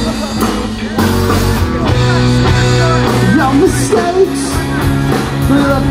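Live rock band playing loud and amplified: electric guitar, bass guitar and drums, with a man singing lead.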